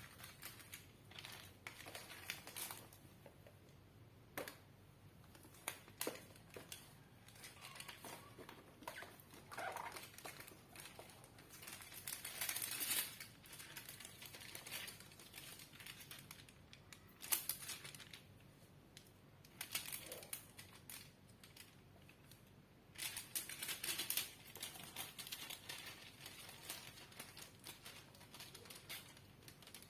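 Plastic being handled: scattered small clicks and taps with crinkling, and a few brief louder rustles.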